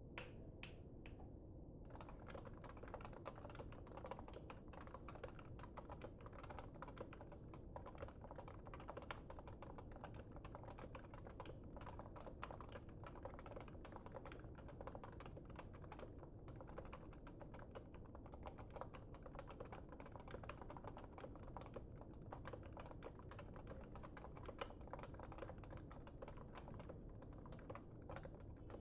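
Fast, continuous typing on an HHKB Pro keyboard with Topre electrostatic-capacitive rubber-dome switches, giving the muted 'thocky' keystroke sound. A few single keystrokes come first, then steady rapid typing from about two seconds in.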